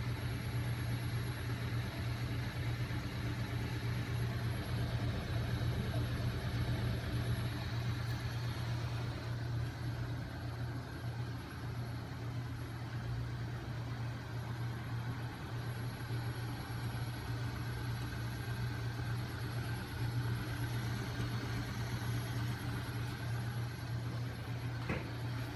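Homemade magnet engine with a 5 kg flywheel and crankshaft running steadily, turned by a small 12 V electric motor: a continuous low mechanical hum.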